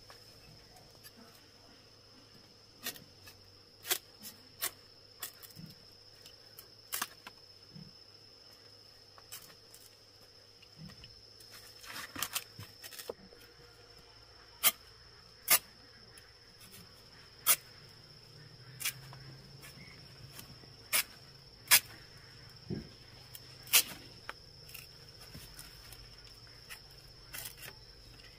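Knife cutting hands of green bananas from the bunch's stalk: irregular sharp knocks and snaps, a dozen or more, loudest in the second half. A steady high insect drone runs underneath.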